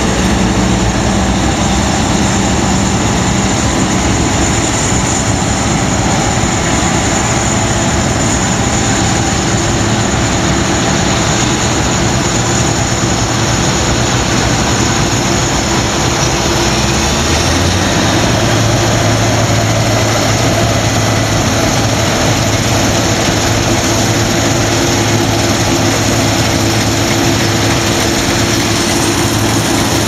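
Claas Lexion combine harvester driving past at close range: loud, steady engine and machinery noise. A little past halfway a deeper, steady engine hum comes in and holds.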